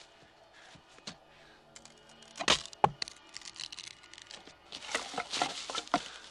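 Horror-film soundtrack playing as sound effects rather than speech: scattered sharp cracks and clicks, with two loud cracks about two and a half seconds in and a burst of crackling near the end.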